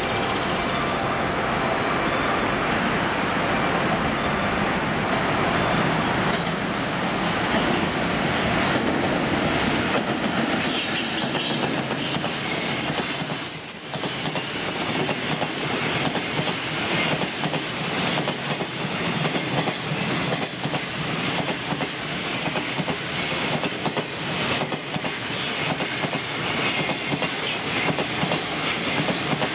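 A JR Freight EF210 electric locomotive and its container wagons passing close by. A steady running noise comes first, then from about a third of the way in the wagons' wheels click over the rail joints in a regular clickety-clack. A brief high-pitched wheel squeal comes near the middle.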